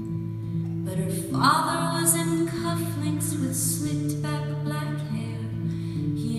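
A woman singing live over an acoustic guitar, holding long sung notes.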